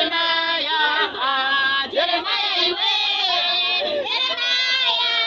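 A group of women's and girls' voices singing together without instruments, holding long notes that slide between pitches.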